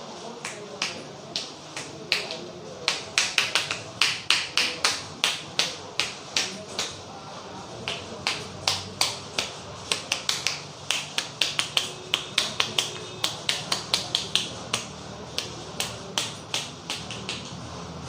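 Sharp slaps and snaps from a barber's hands striking the head during a percussive head massage. They come in quick bursts of about three to four a second, sparse at first and then dense, over a low steady hum.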